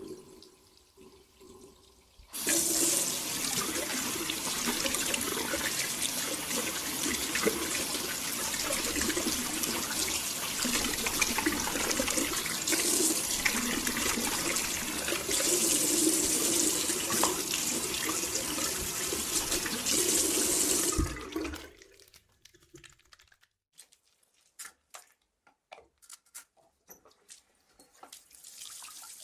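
Water from a tap running into a sink during handwashing. It comes on suddenly about two seconds in, runs steadily with small changes in tone for about nineteen seconds, and stops abruptly, leaving a few faint drips and ticks.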